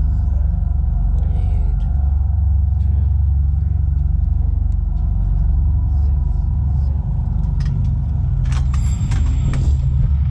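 Low, steady rumble of wind buffeting a head-mounted camera's microphone, with faint voices and a few sharp clicks about eight to nine seconds in.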